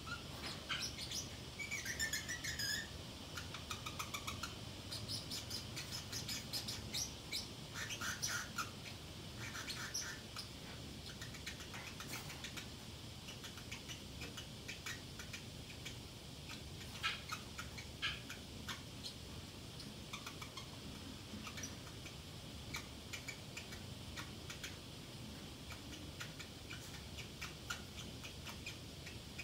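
Pacific parrotlet chattering quietly to itself: scattered short chirps, clicks and little rising squeaks, with livelier bursts in the first few seconds and again around the middle.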